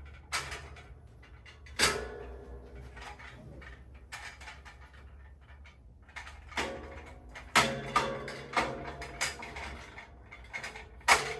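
Clunks and knocks of rack parts being handled as the adjustable tube holders are dropped onto their pegs: a few separate hard knocks with a short ring after them, the loudest about two seconds in, then a quicker run of knocks from about six and a half seconds on.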